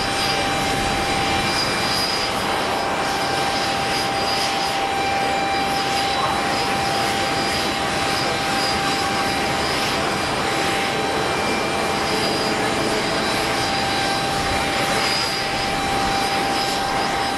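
Boeing 777-300ER's twin GE90-115B turbofan engines at takeoff thrust during the takeoff roll, lift-off and initial climb: a steady, loud jet roar with a constant whining tone over it.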